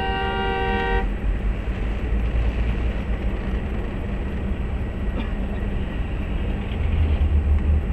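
A vehicle horn sounds one steady blast about a second long, then highway traffic passes with a steady low rumble that swells near the end as a vehicle goes by close.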